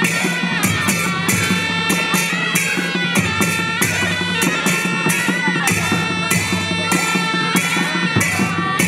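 Nepali panchebaja band playing: a reedy sanai (shehnai) melody over a steady beat of dholaki drums and cymbal strokes.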